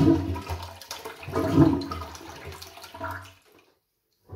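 Toilet flush button pressed, giving only a short, weak rush of water that dies away about three and a half seconds in. The toilet won't flush properly because of a faulty siphon in the cistern.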